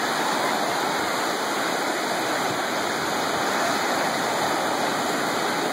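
Ocean surf breaking and foaming in the shallows: a steady rush of water.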